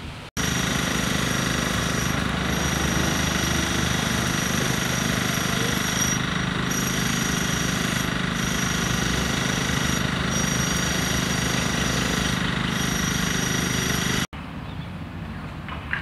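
A loud, steady buzzing drone with a low hum underneath and several high, steady whining tones. It starts abruptly just after the start and cuts off abruptly near the end.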